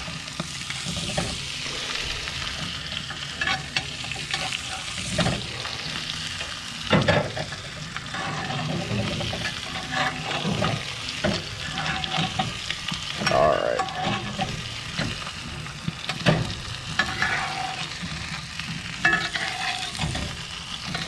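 Butter sizzling and spitting in a cast-iron skillet as it browns while venison loins are basted, with a metal spoon scraping and knocking against the pan a dozen or so times at uneven intervals.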